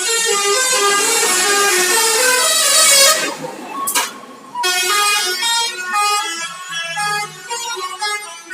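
Telolet bus horn, a multi-tone musical air horn, playing a quick tune of stepped notes. The tune breaks off about three seconds in for a short noisy gap with a click, then starts again about a second and a half later.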